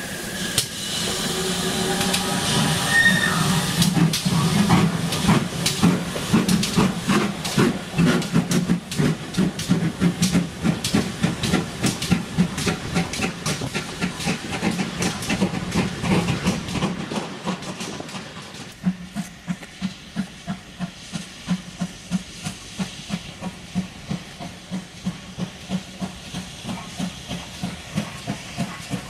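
Steam locomotive working with a train: rapid, regular exhaust beats over a steady steam hiss. About two-thirds of the way through, the sound drops away to a quieter, slower regular beat.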